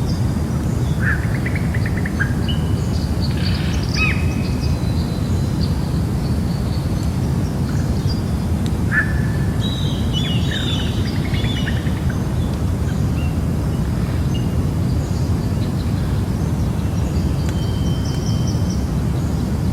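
Jungle ambience: scattered bird calls and chirps, busiest in the first half, over a steady low rumble.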